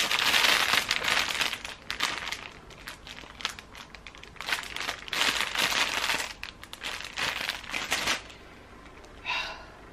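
Clear plastic packaging around packs of synthetic braiding hair crinkling as it is handled, in repeated bursts that die down after about eight seconds.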